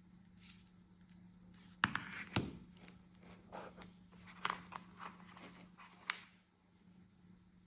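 Phone packaging being handled and opened by hand: a few sharp clicks and short scrapes and rustles of cardboard and plastic, the loudest about two seconds in, over a steady low hum.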